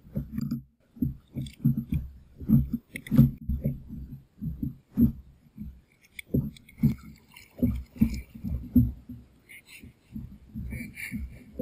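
Irregular low thumps and knocks, several a second and some loud, from handling a big snook held in a lip gripper while it is unhooked and released in shallow water beside a kayak.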